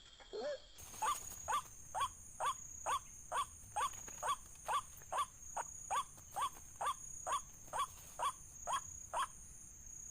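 White-breasted waterhen calling: a long run of short rising-and-falling notes at a steady pace of about two a second, the repetitive call used to lure the bird. A thin steady high tone runs behind it.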